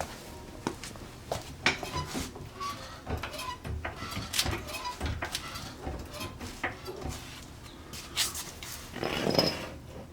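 Scattered metal clinks and knocks of a lug nut and stacked washers being worked off a newly pressed-in wheel stud, with a louder, longer noise of about half a second near the end.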